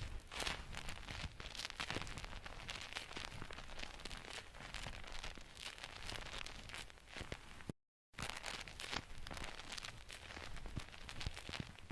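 Close-miked ASMR trigger sounds: continuous crinkling and scratchy rustling made of many rapid small clicks, broken once about two-thirds of the way through by a split second of dead silence.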